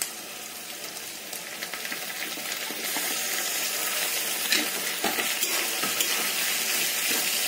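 Sliced onions and fresh tomatoes sizzling in hot oil in a kadhai, the sizzle growing louder about three seconds in. In the second half a spatula stirs them, with a few taps and scrapes against the pan.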